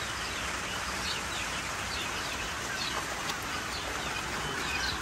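Steady rain, with a scatter of faint, short, falling chirps from a pen of quail.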